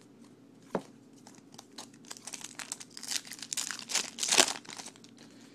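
Wrapper of a baseball card pack being torn open and crinkled, with one sharp click under a second in and the crinkling heaviest near the end.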